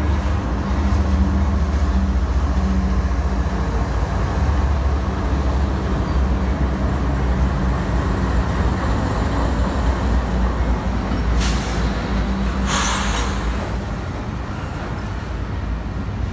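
Union Pacific diesel freight locomotives passing close by, their engines giving a deep, steady drone that fades after about thirteen seconds as double-stacked container cars roll past. Two short hisses come about a second apart near the end.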